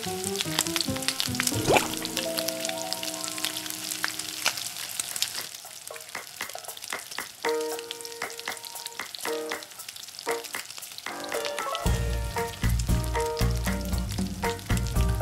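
Pumpkin cake-donut rings frying in a tray of hot oil: a steady sizzle with many small crackles and pops as the freshly dropped dough cooks. Background music plays over it, with a heavy bass beat coming in near the end.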